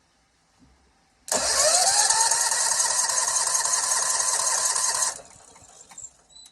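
Kawasaki FH601V V-twin engine cranked on its electric starter, right after its rebuild: a rising whine that quickly levels off, running about four seconds, then cuts off suddenly.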